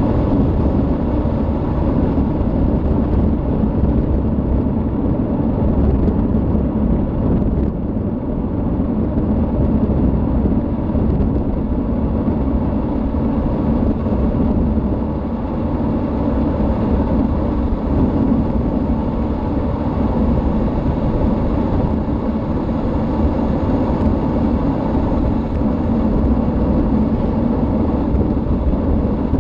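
A car driving fast on an asphalt road: a steady, deep rumble of tyre, wind and engine noise that does not break.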